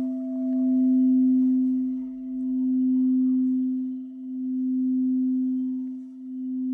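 A struck Tibetan singing bowl ringing on: one low steady tone with a fainter higher overtone, its loudness slowly pulsing, swelling and fading about every two seconds.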